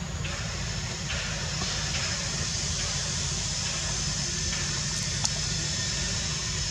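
Steady background noise: a low rumble with a hiss above it, and a faint click about five seconds in.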